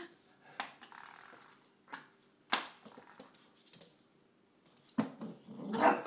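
German shorthaired pointer puppy attacking a door stop: a few scattered sharp taps and knocks over an otherwise quiet room, with a louder burst of sound just before the end.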